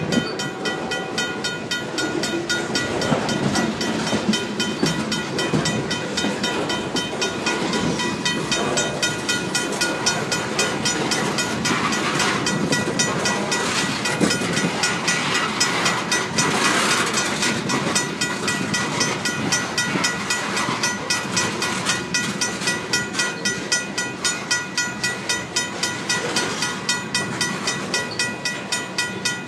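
Freight cars of a Union Pacific train rolling past, wheels clacking over the rail joints, while the crossing's RACO mechanical bell rings in rapid, even strokes.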